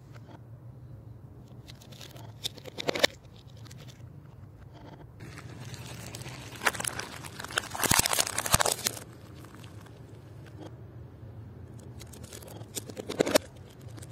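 Thin plastic cups with water balloons inside being crushed under a car tyre: crackling, crunching plastic in three bursts. There is a short one about three seconds in, a longer, louder one in the middle with a couple of sharp snaps, and another near the end, over a faint steady low hum.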